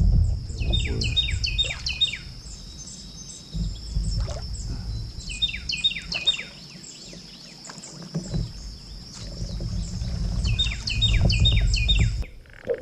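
A songbird sings the same short phrase of quick repeated notes three times, about five seconds apart, over a steady high-pitched whine. Wind rumbles on the microphone, loudest at the start and again near the end.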